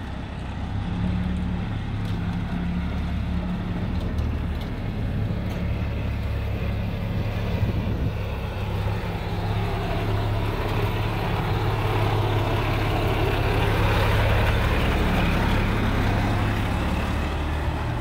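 Kenworth W900L sleeper semi tractor, running bobtail, drives slowly past under its diesel engine. The engine runs steadily and grows louder through the middle and later part as the truck comes close.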